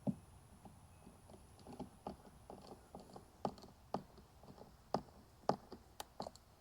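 Irregular light clicks and taps of hand work as a Furrion side camera is slid into its mount and screwed in, the taps coming more often and louder in the second half.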